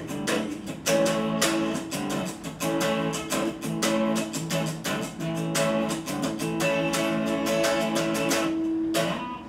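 Electric guitar strummed in a steady rhythm of chords, with no singing; the playing stops and the last chord fades shortly before the end.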